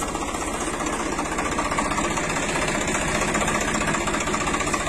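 Tractor engine running with a fast, steady chug.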